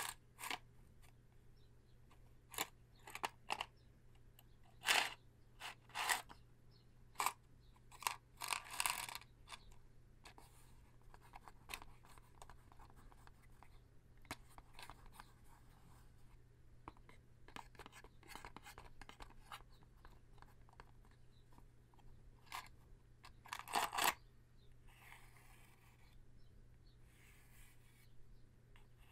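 Fingers tapping, scratching and rubbing on a cardboard matchbox of extra long safety matches: an irregular run of sharp taps and short scrapes, louder in a few clusters, with faint rubbing near the end.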